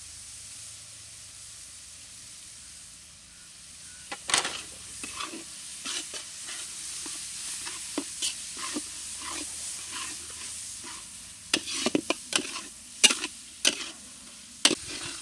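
Onion-tomato masala sizzling in mustard oil in a large black kadai, with a metal spatula scraping and knocking against the pan as it is stirred. The strokes start about four seconds in and come thicker and louder near the end. The masala is far enough along that the oil is starting to separate.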